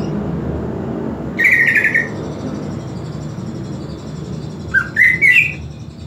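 Green leafbird (cucak ijo) calling: a short burst of quick warbled notes about a second and a half in, then a run of short rising notes about five seconds in, over a steady low background noise.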